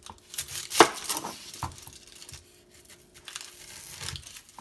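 Chef's knife cutting through a white onion and striking a wooden cutting board: a few sharp knocks in the first two seconds, the loudest about a second in, with faint scraping between.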